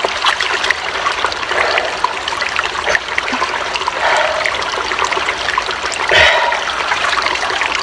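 Stream water running and trickling steadily, with small irregular splashes and one short louder splash about six seconds in.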